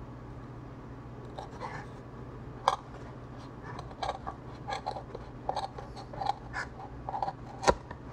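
Small blade cutting and scraping into the EPP foam wall of a flying wing's equipment bay: a run of short, irregular scratchy strokes, with two sharper clicks, the louder one near the end.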